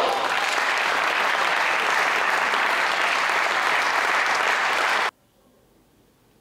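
Spectators clapping after a table tennis rally ends: steady applause that cuts off abruptly about five seconds in, leaving near silence.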